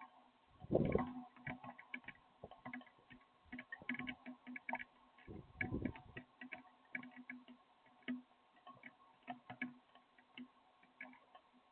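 Raindrops dripping as faint, irregular ticks and clicks, with two dull thumps, one about a second in and one near the middle, over a steady faint hum.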